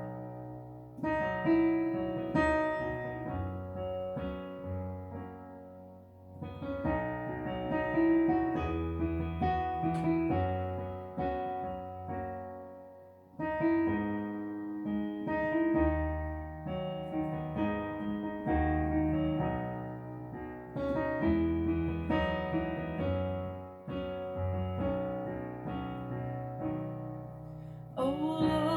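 Piano introduction to a worship song, played in slow phrases of chords over a deep bass.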